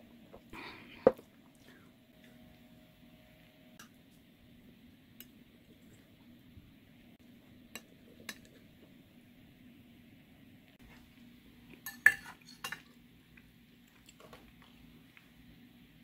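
Metal knife and fork clinking and scraping on a plate as food is cut and eaten. There are sharp clinks about a second in, a cluster of loud clinks about twelve seconds in, and scattered faint taps between them.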